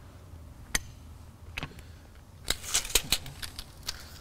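A series of sharp clicks and light clatters from a steel tape measure being picked up, its blade pulled out and laid along the track bar. Most of the clicks come bunched together about two and a half to three seconds in.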